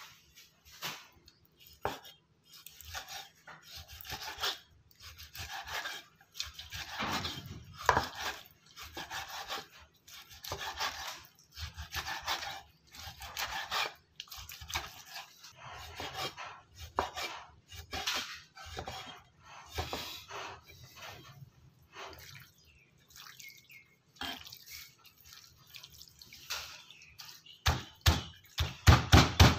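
Knife slicing raw pork into chunks on a thick wooden chopping block: repeated slicing strokes about once a second, the blade meeting the wood. Near the end the strokes turn into louder chops striking the block.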